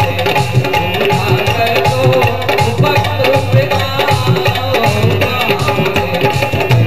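Indian devotional music with a steady hand-drum beat under held melodic tones.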